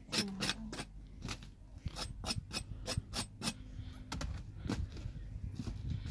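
Baked naan being scraped off the inside wall of a clay tandoor and stacked: a quick run of short, sharp scrapes and clicks, a few each second.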